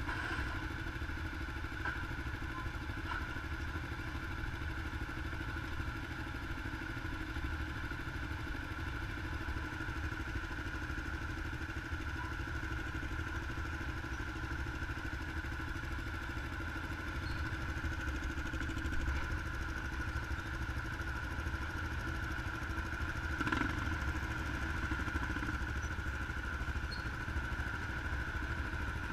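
An engine running steadily at an even pitch, with a constant whine over a low hum.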